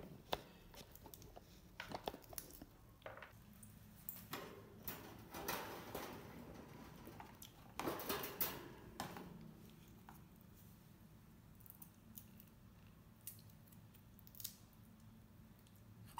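Faint scattered clicks, taps and short scrapes of a metal food bowl and food being handled on a wire cage floor, with a few louder scraping bursts about four to six and eight to nine seconds in.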